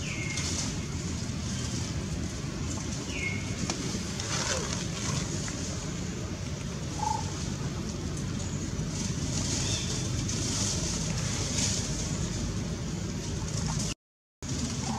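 Steady outdoor background noise: a low rumble with a high hiss over it, and a few brief high chirps. The sound drops out for a moment near the end.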